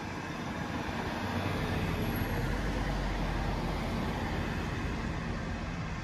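A small SUV driving past close by, its tyre and engine noise swelling over the first few seconds and easing off near the end.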